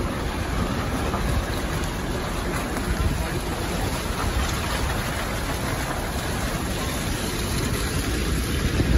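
Steady rumble and hiss of an SUV driving slowly over a muddy, debris-covered road, heard through the open window: tyres on wet mud and gravel with the engine low underneath.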